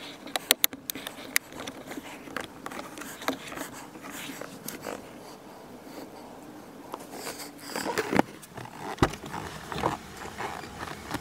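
Hands working on car door trim: a quick run of sharp plastic clicks at the start, then scattered small taps and rustling, and a sharper knock about nine seconds in.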